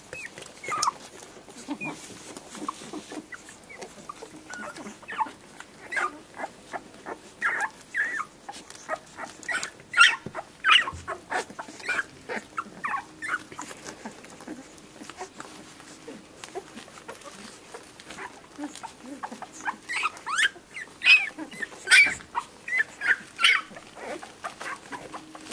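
Week-old whippet puppy squeaking and whimpering in short high-pitched cries that come in clusters, loudest about ten seconds in and again near the end.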